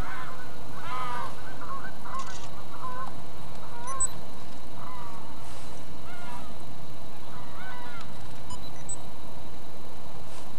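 Geese honking, a run of short calls repeated many times, some overlapping.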